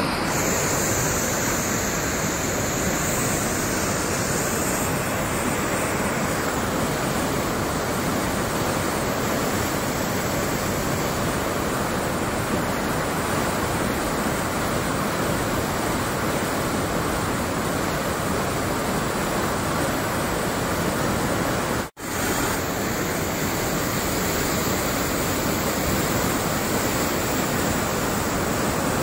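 Floodwater rushing: a loud, steady wash of fast-moving water that breaks off for an instant about three-quarters of the way through, then carries on.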